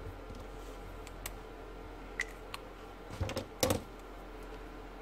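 Pen on sketchbook paper during lettering: a few soft scratches and light taps, with a brief cluster about three and a half seconds in, over a steady low hum.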